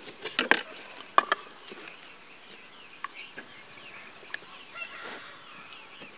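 A knife strikes a plastic cutting board a few times in the first second and a half while tomatoes are sliced, followed by many short bird chirps.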